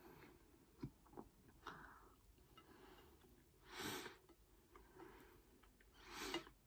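Quiet eating sounds of someone chewing chips: a few small mouth clicks in the first two seconds, then two short breaths through the nose, about four seconds in and near the end.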